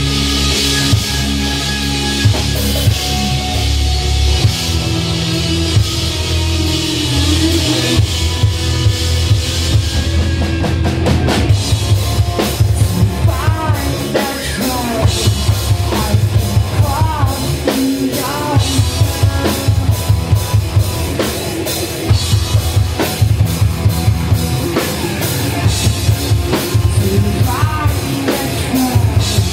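Live rock band playing loud, with distorted electric guitars, bass and a drum kit. About twelve seconds in, the drumming turns to a dense, driving beat under bending guitar notes.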